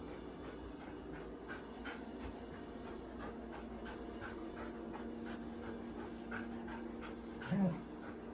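Belgian Malinois panting over the steady hum of a running robot vacuum, with a brief whimper near the end.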